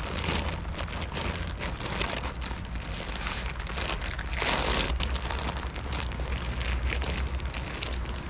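Tent fabric and its stuff sack rustling and crinkling as the tent is folded and pressed into the bag, with the loudest rustle about halfway through. Wind rumbles on the microphone underneath.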